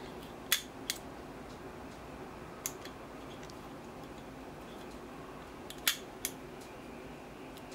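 A handful of light metallic clicks, five spread irregularly, as the timing relay's dial and pin mechanism is worked by hand, over a faint steady hum.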